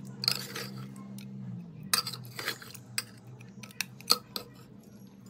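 Metal spatula stirring thick meat curry in a pot: irregular scrapes and sharp clicks of metal on the pot, the loudest about two seconds and four seconds in.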